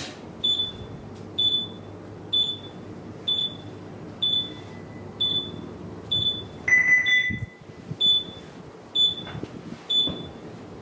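Bridge console alarm on a ship's bridge simulator, beeping in short high pips about once a second, with one longer, lower beep about two-thirds of the way through.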